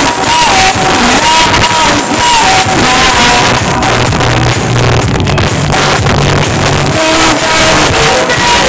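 Loud music with a heavy bass line and a melody gliding between notes, played through a large automotive sound system ('paredão').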